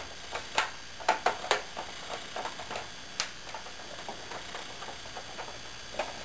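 Plastic screen bezel of a Dell Vostro 1500 laptop being pressed onto the display lid, its clips snapping into place with several sharp clicks: a cluster about a second in and another near three seconds, with fainter clicks after.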